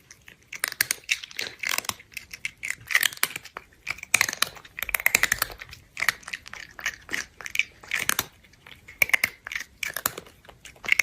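Crunchy chewing and crinkling in short, irregular bursts of crackles.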